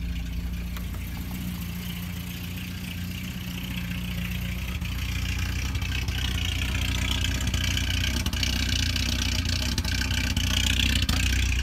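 1990 Volvo 240's engine idling steadily, running on its own on the first start after a fuel tank replacement, with the fuel lines just refilled. A hiss grows louder in the second half as the sound is heard close to the tailpipe.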